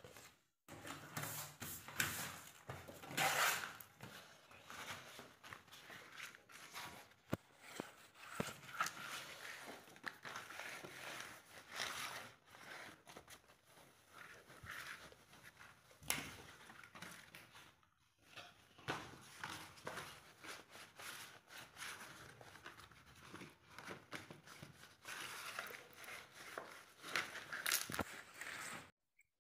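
Banana leaf rustling and crinkling as hands rub and press it down over soft walithalapa, in irregular scrapes and pats that break off briefly twice.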